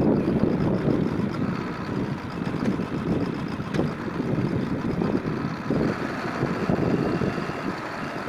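W1C4 backhoe loader's engine running steadily, its rumble swelling and easing as the machine works.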